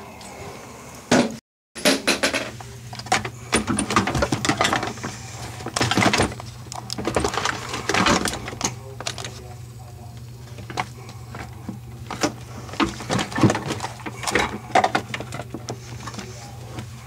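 Close handling noise: fabric rubbing and knocking at the microphone, with scattered clicks and light clatter of metal plumbing parts being worked under a bathroom sink. A steady low hum sets in after a brief dropout near the start.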